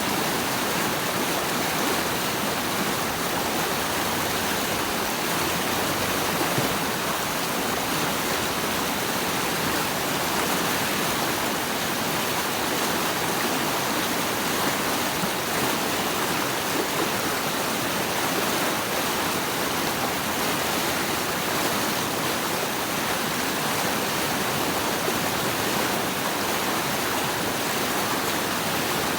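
Running water rushing steadily, an even, unbroken wash of noise with no separate splashes or other events.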